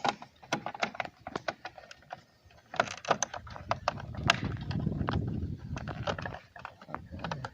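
Hands handling the plastic mirror housing and the turn-signal wiring connector: scattered small clicks and rattles, with a low rustling rumble for a few seconds in the middle.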